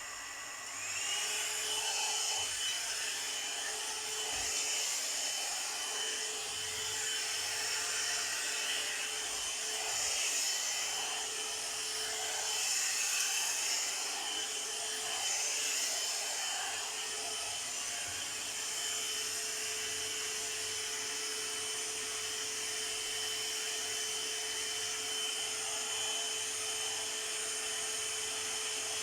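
Hot-air blower brush (hair dryer styler) running on its high setting: a steady rush of air with a thin motor whine. About a second in the whine rises and the sound gets louder as the motor speeds up to high.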